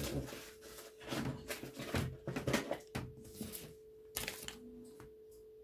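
Handling noises: light clicks, knocks and rustles of small objects being moved about, thinning out toward the end, over a faint steady hum.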